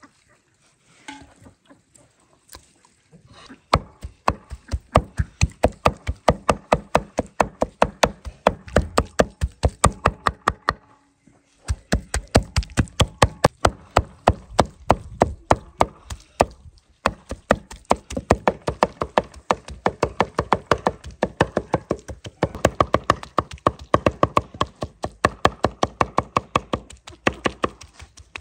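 Two large knives chopping raw chicken breast on a wooden cutting board, mincing it in quick, even strokes. The chopping starts a few seconds in, breaks off briefly about eleven seconds in, then resumes.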